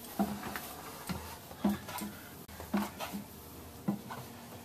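Footsteps going down wooden steps onto a teak cabin floor: a short knock every half-second to second, each with a brief low ring, in a small enclosed cabin.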